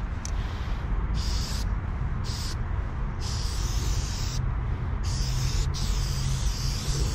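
Aerosol spray-paint can spraying in about five hissing bursts with short pauses between, the later bursts longer, over a steady low rumble.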